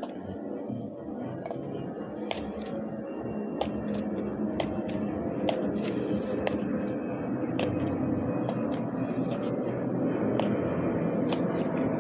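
A metal fork stabbing holes in the skin of a long green eggplant, a sharp tick at each stab about once or twice a second, over a steady low rumble. The eggplant is being pricked before grilling.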